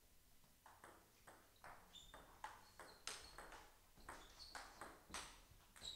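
Table tennis rally: the ball clicking off the players' bats and bouncing on the Donic table, a quick run of light ticks and pings about three a second, starting about half a second in.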